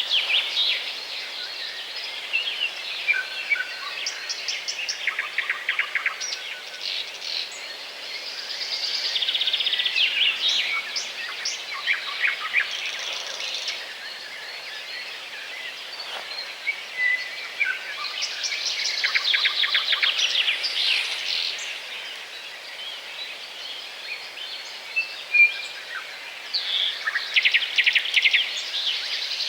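Several small songbirds chirping and calling, with short rapid trills recurring and overlapping throughout.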